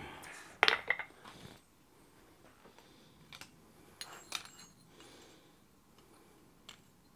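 Scattered light metallic clinks of blacksmith's tools being set down and handled on a steel anvil: hammer, tongs and punch. A cluster comes about a second in, a couple more around four seconds, and a faint one near the end.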